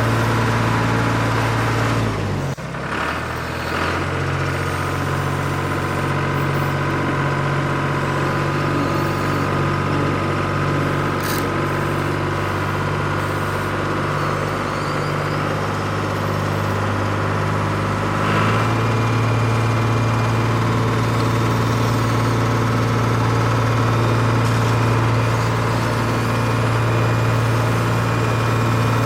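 Engine sound of an RC construction model, running steadily with a deep, even note. The note changes briefly about two and a half seconds in and shifts again about 18 seconds in.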